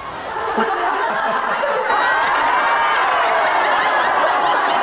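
A group of people laughing together, many voices overlapping, growing louder over the first second: the deliberate group laughter of laughter yoga.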